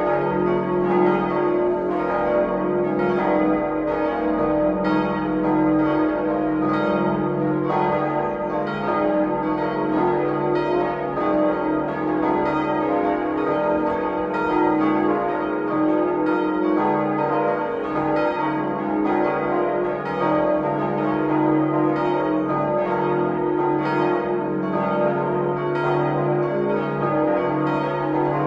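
A full peal of several church bells swinging and ringing together, with strokes overlapping several times a second over a sustained ringing hum.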